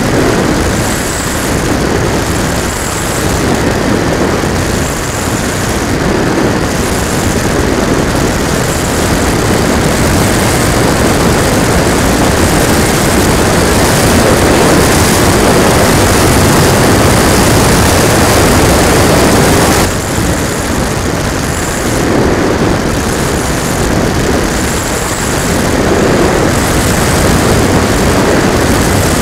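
Wind rushing and buffeting over the microphone of a camera mounted on an RC model plane in flight, with the plane's motor and propeller running under it. The rush swells and eases, dropping briefly about two-thirds of the way through.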